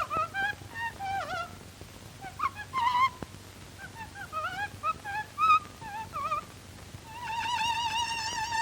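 Parrot whistling: a string of short sliding chirps and whistles, then a long wavering whistle starting near the end.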